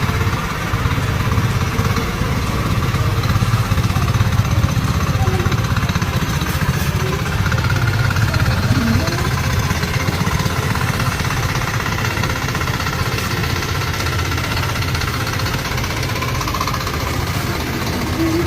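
A logging truck's diesel engine running steadily, with a deep, fast-throbbing rumble that holds at an even loudness.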